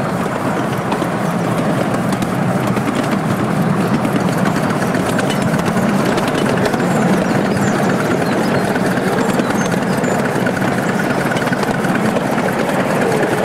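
Miniature steam train running along the track, heard from a passenger car behind the locomotive: a steady, loud, rhythmic clatter of wheels on rail.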